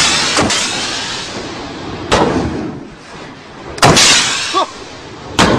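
Shoulder-fired RPG launchers going off in a ragged volley. Several loud blasts come at uneven intervals, and each trails off in a long hissing, rumbling decay.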